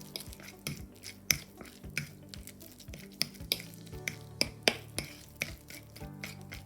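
Minced chicken mixed with miso being worked in a bowl until sticky, giving quick sharp wet clicks and smacks about three a second.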